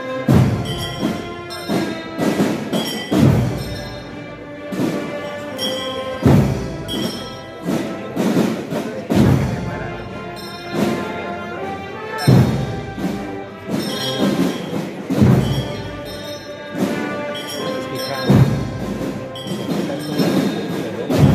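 Marching band playing: heavy drum strokes every second or so under sustained pitched notes and ringing bell-like tones.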